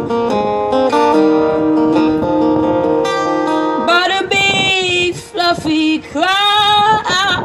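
Acoustic guitar strummed in a steady run of chords; about four seconds in, a woman's singing voice comes in over it with long, wavering held notes.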